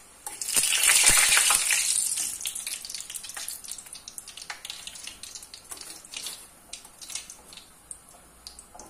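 Hot vegetable oil sizzling and crackling in a frying pan as fried filo rolls are lifted out with metal tongs. It is loudest in the first couple of seconds, then dies down to scattered pops and light clicks.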